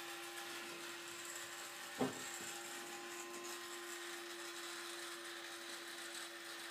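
Steady mechanical hum with one constant mid-pitched tone from the motorised dragon clock prop's machinery, broken by a single sharp knock about two seconds in.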